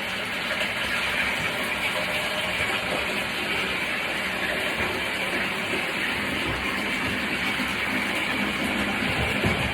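Water running steadily into the wash tub of a portable twin tub washing machine, filling it for a rinse.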